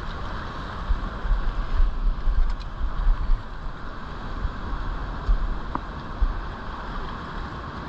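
Steady rush of flowing river water, with gusts of wind buffeting the microphone in low, uneven rumbles.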